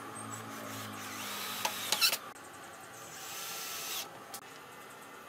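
28V cordless drill-driver running into a wooden frame joint in two bursts. The first lasts about a second and ends with a few sharp clicks. The second, shorter one cuts off about four seconds in.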